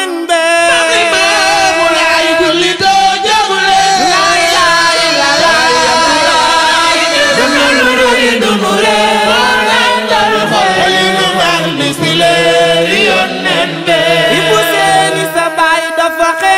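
A Wolof devotional chant sung by a group of voices, the melody drawn out in long, bending lines over a low held note.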